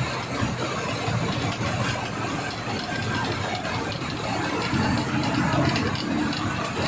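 Hino bus's diesel engine running on the road, heard from inside the driver's cab as a steady low drone that grows a little louder about five seconds in.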